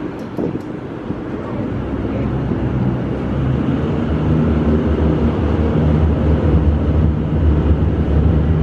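A vehicle engine running with a low, steady hum that grows louder over the first four seconds, then holds.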